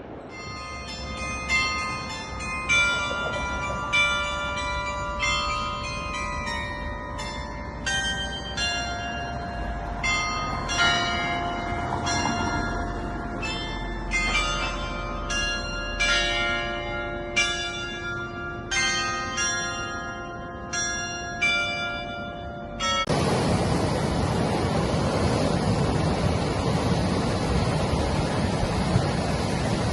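A melody of bell-like struck notes, each ringing briefly, played at an uneven pace. About 23 seconds in it cuts off suddenly and gives way to a steady rushing noise.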